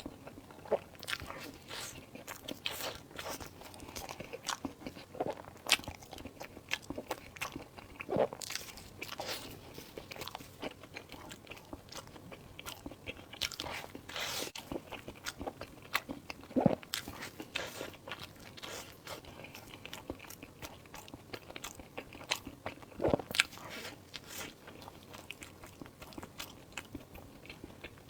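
Close-miked mukbang eating: biting and chewing food, with many short irregular clicks and smacks and a few louder bites.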